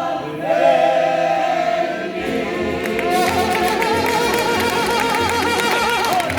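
Mariachi band playing the final bars of a song. The singers hold a long closing note together with vibrato, then the band carries on with wavering held notes over a pulsing bass beat.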